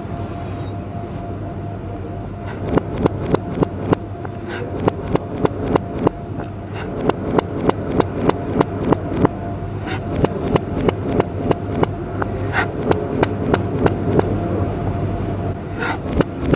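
Knife chopping vegetables on a cutting board: sharp chops of about four or five a second, in runs with short pauses, starting a few seconds in. A steady low hum runs underneath.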